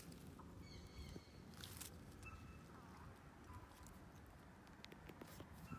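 Near silence: faint outdoor background with a few soft clicks and light patter.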